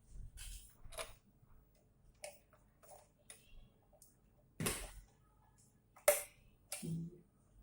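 Irregular small clicks and short scrapes of hand tools and parts being handled on an amplifier under repair, the sharpest a little under five seconds in and again about six seconds in.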